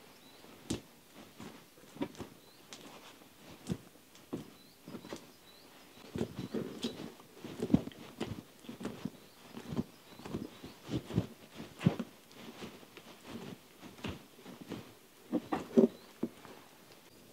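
Irregular clicks, taps and soft knocks, coming thicker about six seconds in, with a few faint high chirps of small birds in the background.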